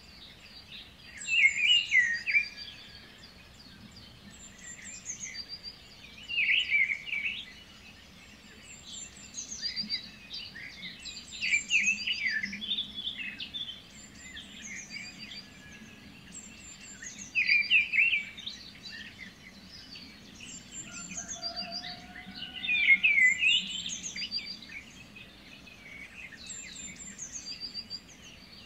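Birdsong: several birds chirping and singing, with louder bursts of song every few seconds and thin high chirps repeating in between.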